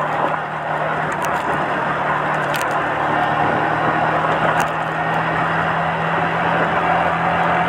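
Yamaha Vixion's single-cylinder four-stroke engine running steadily while the motorcycle cruises, heard from the rider's position along with a steady rush of wind and road noise.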